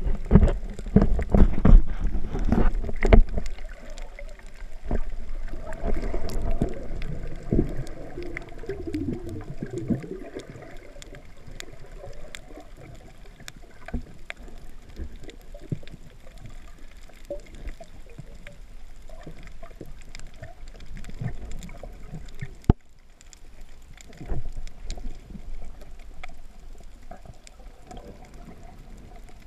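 Underwater sound through a camera's waterproof housing while snorkeling: muffled water sloshing and thumping for the first few seconds, then a quieter steady wash with many faint scattered clicks.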